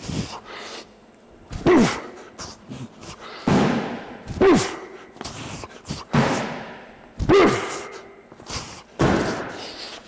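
A strongman throwing sandbags over a high bar one after another, three or four throws: a short grunt falling in pitch with each heave, and a heavy thud as each bag lands on the concrete floor.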